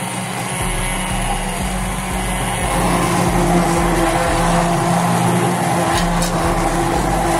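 Hand-held immersion blender running steadily, its motor whirring as it purees cooked pumpkin soup in a glass saucepan. The sound gets louder about three seconds in.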